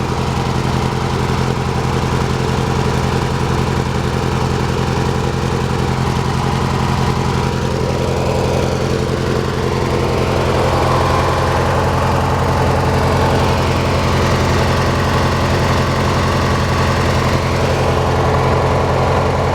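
Hechinger by MTD lawn tractor's small engine running steadily.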